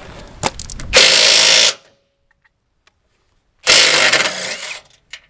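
Battery-powered wrench with a 9/16-inch socket running in two loud bursts, about a second in and again near the end, as it works loose the bolts that hold the old tongue jack to the trailer's A-frame. A few clicks come just before the first burst.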